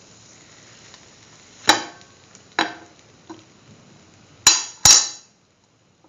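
Kitchen cookware and utensils clattering: four sharp clinking knocks, each with a short ring, the last two close together, and a fainter knock between them.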